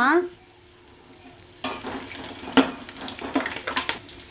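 Perforated metal skimmer stirring and scraping in a large aluminium pot of hot oil, fried onions and green chillies, with sizzling and a run of sharp clinks. It starts about a second and a half in and stops shortly before the end.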